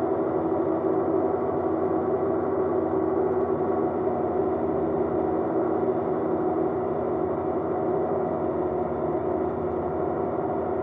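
Rotax engine of a light tailwheel aircraft droning steadily. It holds one even pitch with no revving up or down.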